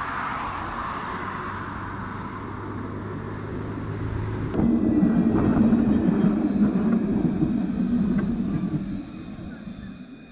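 A modern low-floor tram passing close by, its rumble loudest for about four seconds before fading away. Before it, after a cut, a steady hum and rumble of rail-yard ambience.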